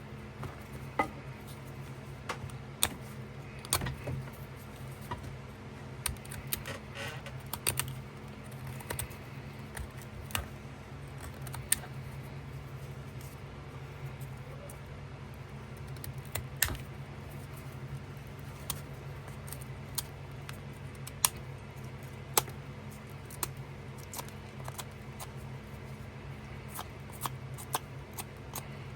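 Pocket knife cutting and scraping on a stick, irregular sharp clicks and little scrapes as the blade bites the wood, over a steady low hum.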